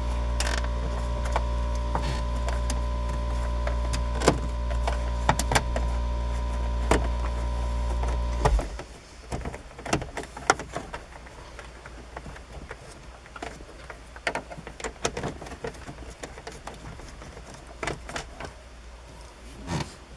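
A steady low motor hum, with small clicks over it, cuts off suddenly about eight and a half seconds in. After that there are only scattered light clicks and taps from screws and trim being worked on the dashboard.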